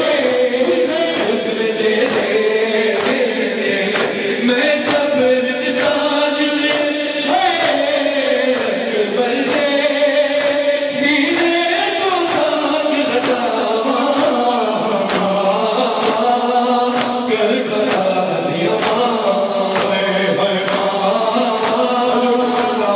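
Urdu noha chanted by a male reciter with a chorus of voices joining in, over a steady beat of sharp hand strikes, the mourners' chest-beating (matam).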